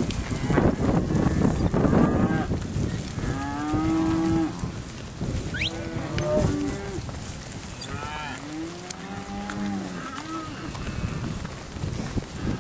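Cattle mooing: several long calls, some overlapping, starting about three seconds in. Before them, a couple of seconds of rough noise.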